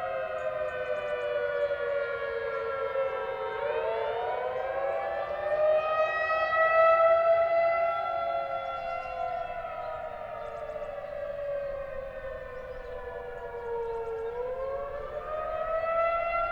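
Outdoor civil defense warning siren sounding its test, heard from a distance: a wailing tone that falls, rises over about three seconds, sinks slowly over about seven seconds, then starts to climb again near the end, swelling loudest soon after the first rise.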